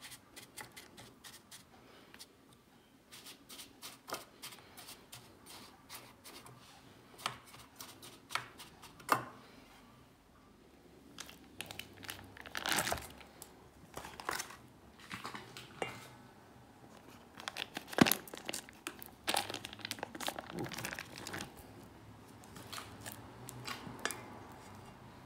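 Kitchen handling sounds: cream cheese being unwrapped and dropped into a stainless steel mixing bowl, with crinkling and tearing of the wrappers and a spatula knocking on the bowl. Irregular rustles and sharp clicks, the sharpest about eighteen seconds in.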